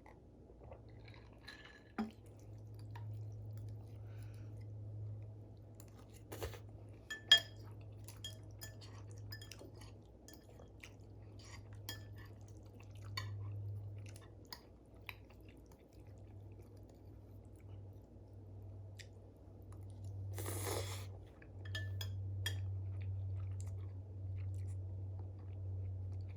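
Close-up chewing of noodles, with scattered light clicks and clinks of utensils and a glass, and a brief rushing noise about twenty seconds in, over a steady low hum.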